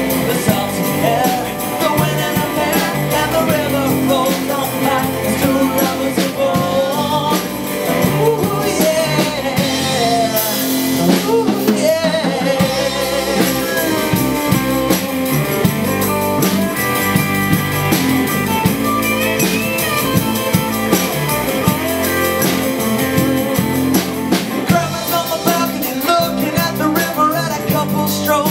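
Live band playing a song: electric and acoustic guitars, bass guitar and drum kit with sung vocals.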